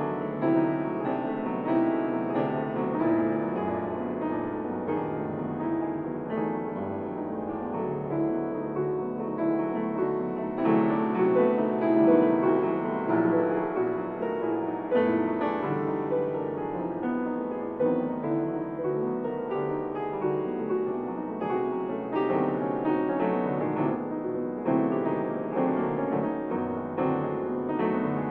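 Organ music: a slow keyboard piece of moving chords over long-held bass notes that change only every several seconds.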